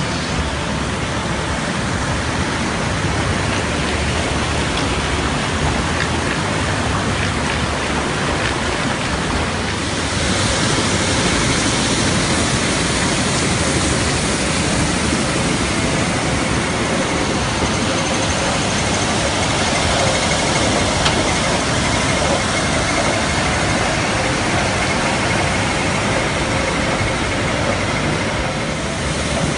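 Tulip bulb washing and grading machinery running: a steady mix of motor, conveyor and rattling bulbs with rushing water. From about ten seconds in, a brighter hiss of water sprays washing the bulbs joins in.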